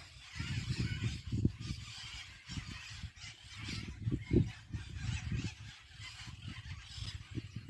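A flock of parakeets and calancate conures squawking and chattering continuously, harsh overlapping calls, over a low uneven rumble.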